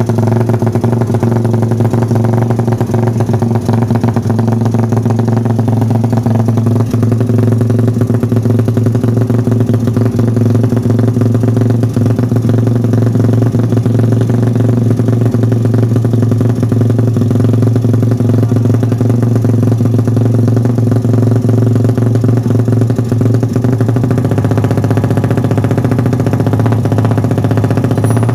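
Ported and bored-out (155 cc) Suzuki Satria FU single-cylinder four-stroke motorcycle engine running loudly at a steady idle while warming up.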